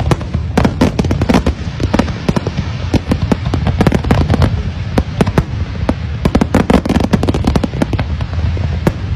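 Fireworks display: a dense, irregular barrage of bangs and crackles, several a second, over a steady low rumble.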